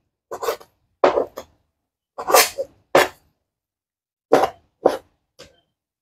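A cleaver cutting raw chicken breast on a plastic cutting board: a series of short, irregular knife strokes and chops against the board, about eight in six seconds.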